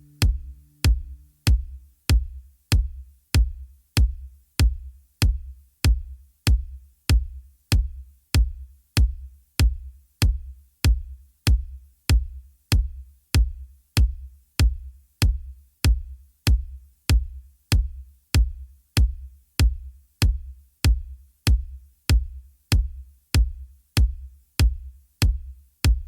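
Electronic music track: a lone kick drum beating steadily, about three beats every two seconds, each beat with a sharp click on top. A low held note fades out over the first second or so.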